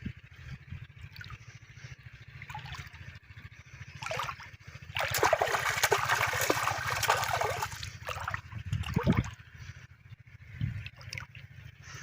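River water splashing and trickling. The loudest splashing comes in a burst of about three seconds in the middle, with shorter splashes just before and after it, over a steady low hum.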